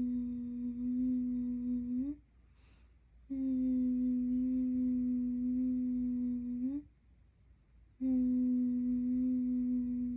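A person humming one low, steady note again and again, each held about three seconds and lifting slightly in pitch as it ends. A short breath is taken in the first pause.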